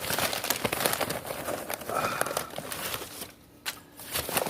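Pieces of lump charcoal clattering and scraping against each other as they are piled into a charcoal grill, with a short pause about three and a half seconds in.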